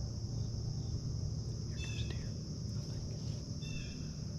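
Steady chorus of insects chirping, with two short bird chirps, one about two seconds in and another near the end.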